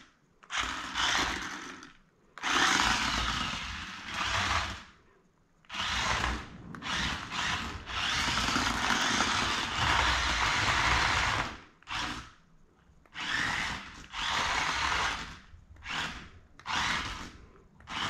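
Toy-grade RC stunt car's small electric drive motors and gearboxes whirring as it drives forward and back on its tracks, in a string of stop-start bursts with one longer run of about four seconds in the middle.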